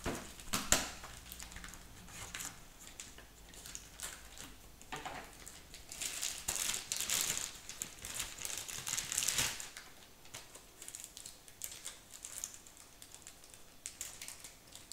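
A small cardboard box being opened and unpacked by hand: scattered taps and clicks of cardboard and small parts being handled, with a few seconds of crinkling packaging around the middle.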